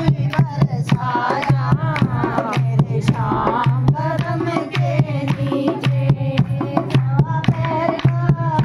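Women singing a devotional kirtan bhajan together to a dholak. The drum gives a deep repeating beat, and a metal spoon struck on the drum adds sharp clicks about four times a second.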